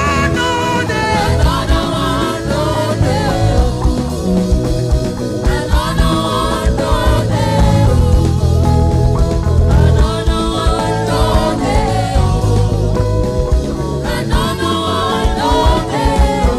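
Live gospel worship music: a band playing with voices singing over it.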